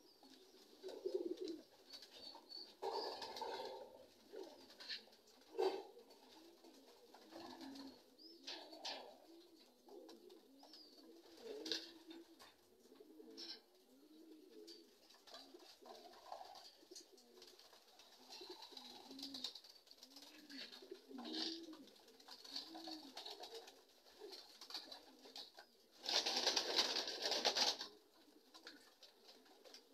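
Domestic racing pigeons cooing over and over in a loft, with a few sharp knocks in between. Near the end a loud rushing noise lasts about two seconds.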